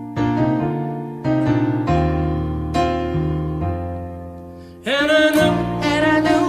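Background music: a piano playing slow chords, each struck and left to fade. About five seconds in, a singing voice comes in over it.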